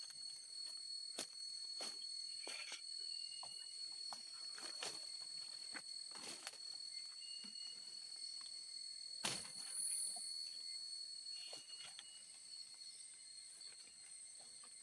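A steady chorus of forest insects, several high unbroken tones, with scattered knocks and rustles of handling or movement, the loudest knock about nine seconds in.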